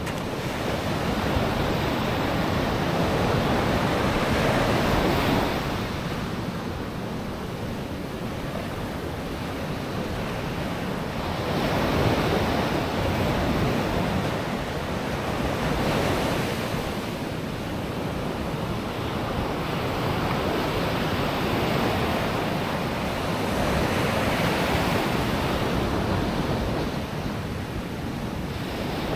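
Ocean surf breaking and washing on the shore, a steady rush that swells and fades in slow surges every few seconds as waves come in. Some wind noise on the microphone.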